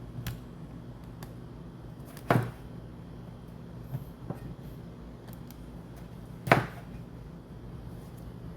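A few sharp knocks and clunks of kitchen things being handled and set down, the two loudest about two and six and a half seconds in, over a steady low hum.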